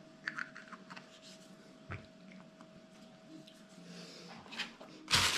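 Small clicks and light knocks of hands handling a telescope reducer field flattener and its caps, then a short, louder scraping rustle near the end as it is set back into its foam-lined box.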